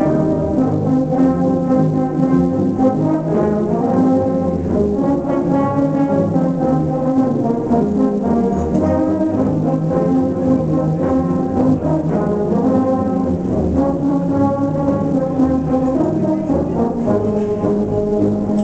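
Large ensemble of tubas and euphoniums playing a Christmas carol, holding full sustained chords that change every second or so.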